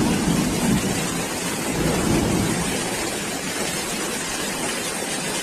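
Heavy rain and fast-flowing floodwater making a steady rushing noise, with louder low swells in the first couple of seconds.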